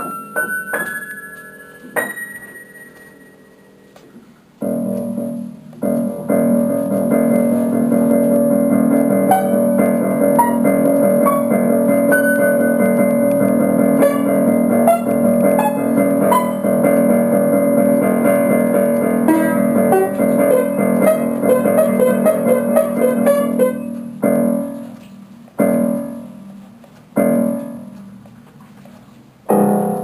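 Background piano music: a few single notes, then a busy run of quick notes over held chords, ending in several separate chords that ring out and fade.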